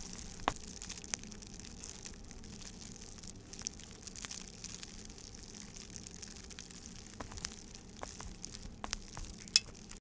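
Faint, scattered small clicks and knocks over a low steady hum and hiss, made by hand as foley. One sharper click with a short ring comes near the end.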